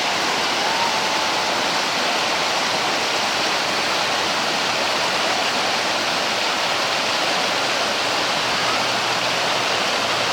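Creek water running in a steady rush. A faint low hum joins it near the end.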